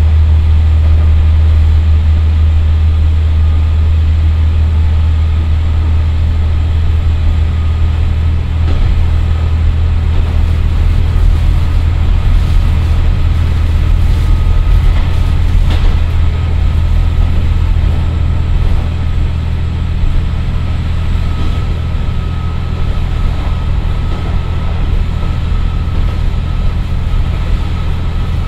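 Cabin sound of a JR Kyushu KiHa 40 diesel railcar under way, its Komatsu SA6D125HE-1 diesel engine working steadily under load on the climb over the pass, a deep drone with a faint steady whine above it.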